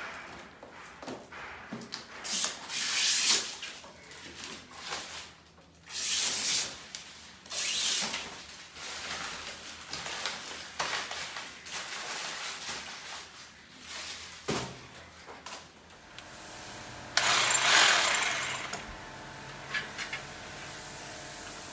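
Tool work while an air conditioner is fitted: a series of short scraping, drilling-type bursts with knocks and clicks between them, the longest and loudest burst about seventeen seconds in. A quieter steady running sound follows near the end.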